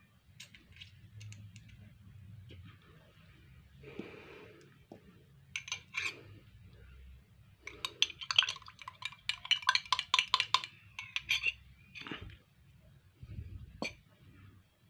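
A metal utensil clinking against a small drinking glass: scattered clinks and knocks, then a quick run of about five clinks a second for some three seconds in the middle.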